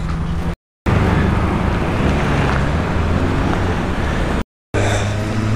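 A vehicle engine running steadily at a low, even pitch, amid outdoor noise. The sound drops out twice for a moment.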